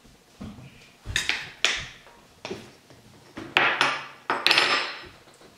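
A spoon clinking and scraping inside a plastic canister of cornstarch as it is scooped, with the plastic lid handled and set down: a series of sharp clicks and knocks, busiest and loudest in the last two seconds.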